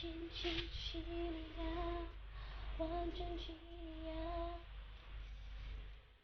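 A woman humming a tune in long held notes, stopping a little over halfway through, with light rustling of the album's packaging as she handles it.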